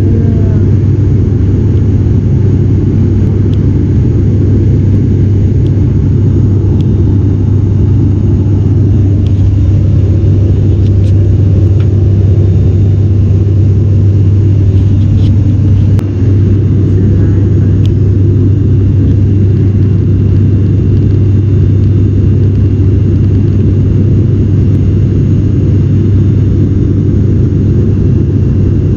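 Cabin drone of an ATR turboprop airliner in flight: its propellers and engines make a steady low hum under a constant rushing noise.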